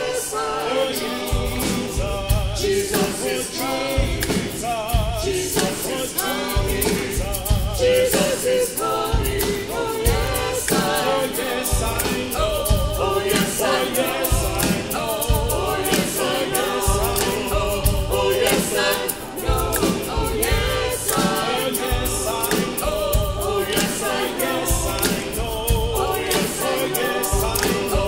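Music: a choir singing a gospel song over a steady low beat of about one thump a second.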